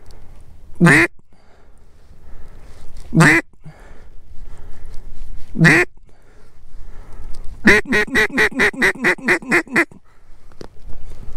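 A duck call blown by a hunter to turn incoming ducks: three single drawn-out quacks about two and a half seconds apart, then a quick run of about a dozen short quacks, around six a second.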